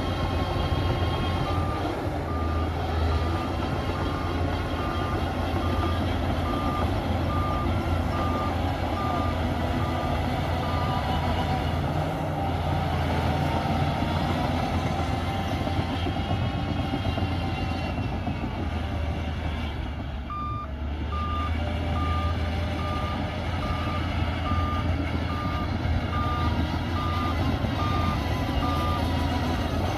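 Heavy diesel machinery running steadily with a reversing alarm beeping at a little more than one beep a second, in two runs of about ten seconds each, the second starting about twenty seconds in; the beeping marks a machine backing up, typical of a bulldozer reversing after a push.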